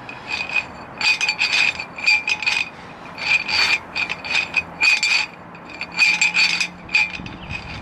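Drain snake's coiled metal cable clicking and rattling in irregular clusters of quick clicks as it is worked inside a rusty sewer pipe. A faint steady high whine runs underneath.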